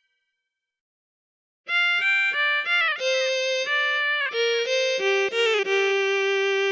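Mobile phone ringtone built into the Fujitsu F-09A: a melody in a violin-like voice that starts about a second and a half in, runs through a quick string of notes and settles on a long held note near the end.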